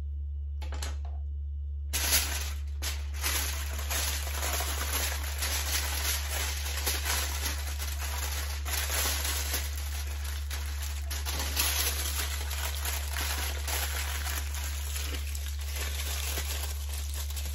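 Kitchen tin foil crinkling and crackling continuously as it is folded and wrapped tightly around food, starting about two seconds in.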